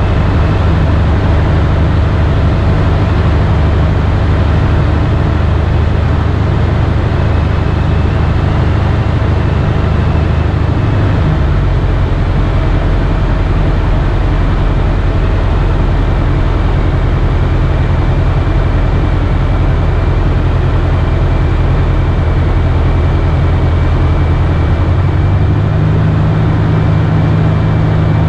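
Jodel single-engine light aircraft's piston engine and propeller running steadily, heard from inside the cockpit. The engine note changes about a third of the way in and again near the end, as power is adjusted on the approach.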